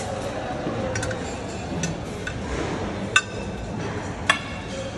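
Metal serving tongs clinking against buffet trays and a plate: a few light clicks, then two sharp ringing clinks about three and four seconds in, over a steady background din.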